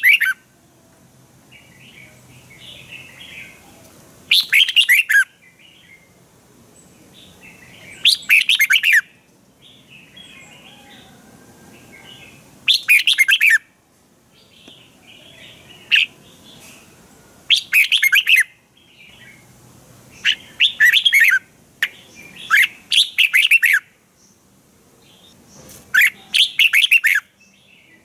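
Red-whiskered bulbul singing loud, quick phrases of about a second each, repeated every three to four seconds, with softer chirping between them.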